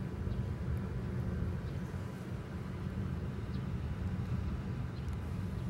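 Outdoor background sound: a steady low rumble with no distinct event standing out.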